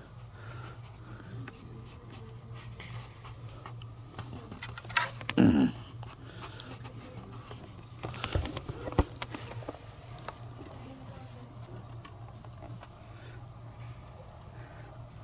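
Night insects chirring in a steady high-pitched chorus. About five seconds in there is a sharp click, then a short low grunt that falls in pitch, and a few faint clicks follow a few seconds later.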